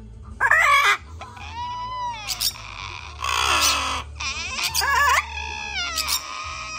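Yellow-naped amazon parrot calling: a string of squawks and gliding, whistle-like calls, with a harsher screech about three seconds in and a long falling call that levels off near the end.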